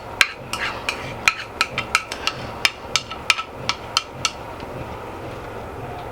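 Sharp kitchen-utensil knocks and taps, irregular at about two or three a second, as onions go into the soup pot; they thin out about four and a half seconds in.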